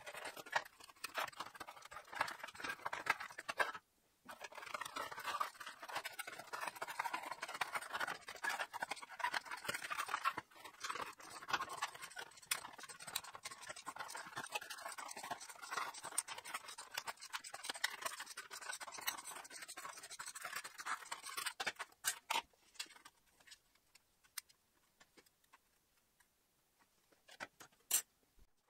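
Tin snips cutting sheet aluminium, a continuous crisp crunching and scratching of the blades shearing the metal as a circular opening is rough-cut. This stops a little over 20 seconds in, and only a few sharp clicks follow.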